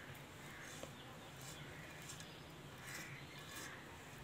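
Faint soft swishing and squishing of a hand kneading shredded chicken into a wet mashed potato and egg kabab mixture in a metal bowl.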